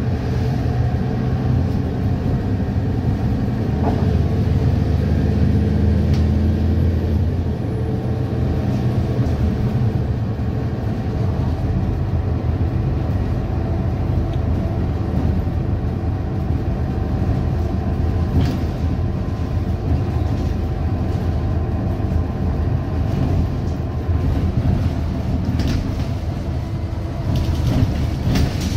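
Mercedes-Benz Citaro single-deck bus heard from inside the cabin: a steady low diesel engine rumble, a little stronger for a few seconds early on, with a few short rattles or clicks later.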